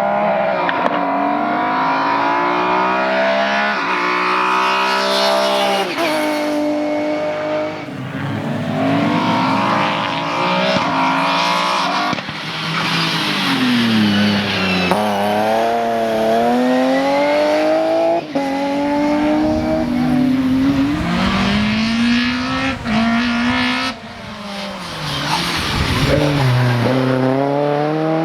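Race car engine accelerating hard and backing off again and again, the revs climbing and dropping sharply many times through gear changes and braking.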